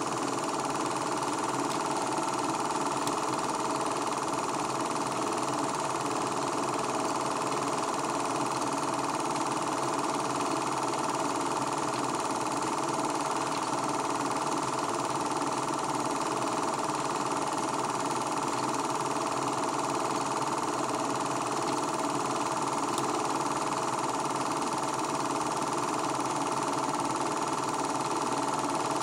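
Film projector running, a steady mechanical whir that does not change throughout.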